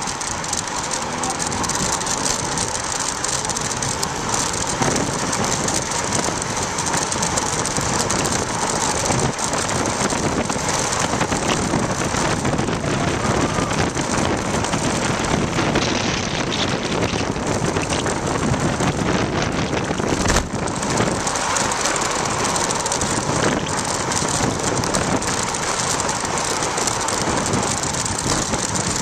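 Steady wind rush and road noise on a bicycle-mounted camera's microphone during a fast road-bike descent, with one sharp knock about twenty seconds in.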